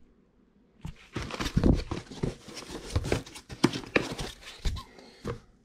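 Cardboard shipping box being opened and handled: an irregular run of rustles, scrapes and knocks from its flaps and the foam packing inside, starting about a second in.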